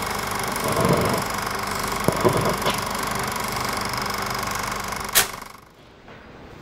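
Film projector running with a steady mechanical clatter. It stops with a sharp click about five seconds in and fades away.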